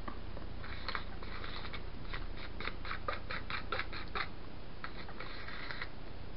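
A run of light clicks and crackles from small things being handled, busiest in the middle at about five clicks a second.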